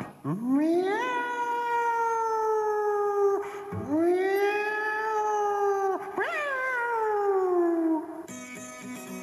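Three long wailing calls, each rising sharply at its start and then sliding slowly down in pitch. The first is the longest, about three seconds.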